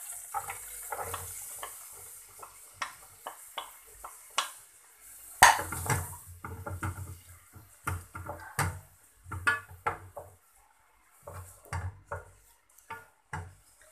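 Wooden spoon scraping and knocking against an aluminium saucepan as diced onion is pushed off a plate into melted butter and oil and stirred. The knocks are irregular, the loudest about five and a half seconds in, with a light high hiss over the first half.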